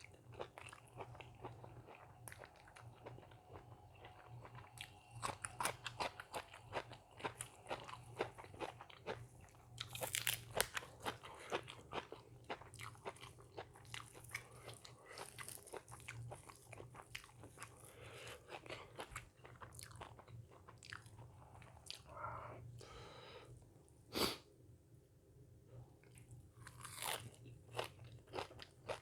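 A person eating crunchy food close to the microphone: irregular crisp bites and chewing, with a steady low hum underneath and one sharper crack about three-quarters of the way through.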